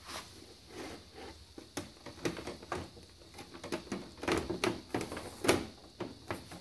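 Computer case side panel being handled and fitted onto the case: a run of knocks, clicks and scrapes, the loudest about five and a half seconds in.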